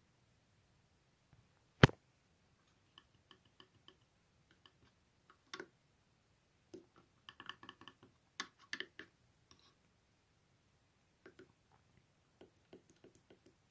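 Small tactile push-buttons on a dosimeter's circuit board clicking as they are pressed to scroll through the menu: one sharp, louder click about two seconds in, then many faint, irregular clicks, some in quick runs of several.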